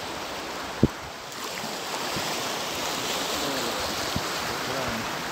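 Sea waves washing over a rocky shore, a steady rushing wash with some wind on the microphone. A single sharp click about a second in.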